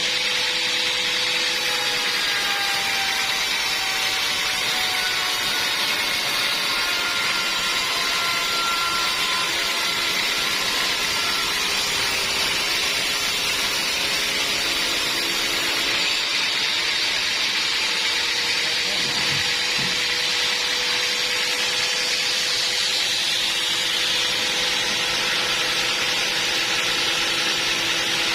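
Sawmill band saw running steadily, a dense mechanical noise with a thin whine that drifts slowly up and down in pitch.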